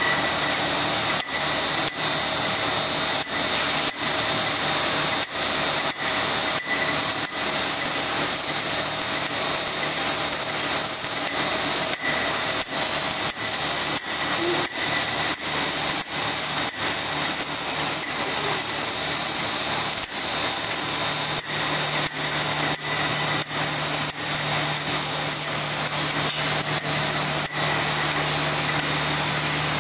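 Corn puff snack extruder line running: a steady machine noise with a high whine, cut by a regular click a little over once a second. A low hum joins about two-thirds of the way through.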